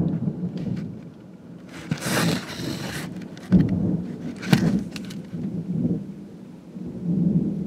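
Thunderstorm noise heard from inside a vehicle: an uneven low rumble, with two short hissing gusts about two seconds in and again past the middle.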